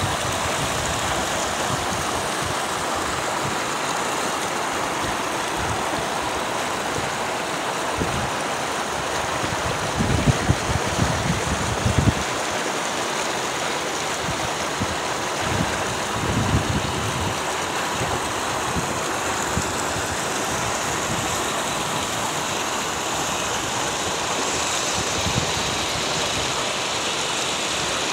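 Steady loud rush of floodwater churning over and through a river causeway. A few louder low bumps come through about ten to twelve seconds in.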